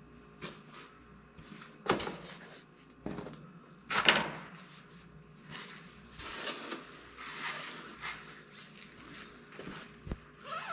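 Scattered knocks and clunks of parts being handled, the loudest about four seconds in, with scuffing and rustling in between.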